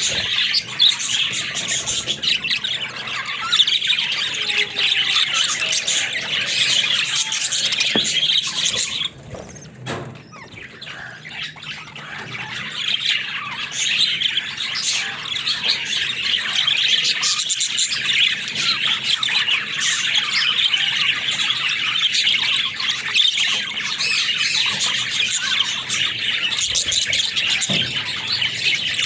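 Pet budgerigars chirping and warbling continuously, with a quieter lull about nine seconds in before the chatter builds up again.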